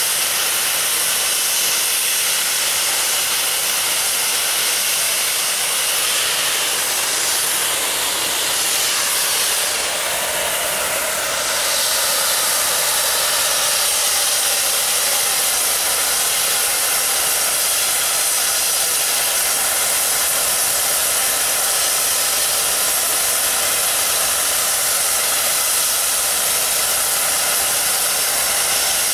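Nickel Plate Road 765, a Lima-built 2-8-4 Berkshire steam locomotive, standing with steam venting from the top of its boiler: a loud, steady hiss that dips briefly about ten seconds in.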